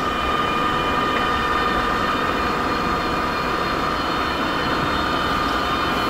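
TP-Link Tapo RV30 Plus robot vacuum running on its first mapping pass: a steady motor whine from the suction fan, a high tone over an even rushing hiss.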